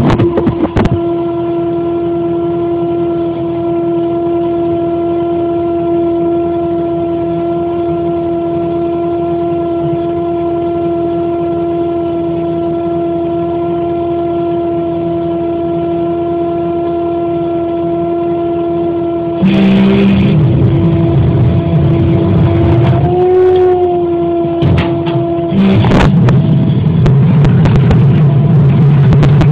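Crane truck running, its engine and hydraulics giving a steady whine. About two-thirds of the way through it turns louder and rougher with a deep rumble, and the whine briefly dips in pitch and recovers as the crane works.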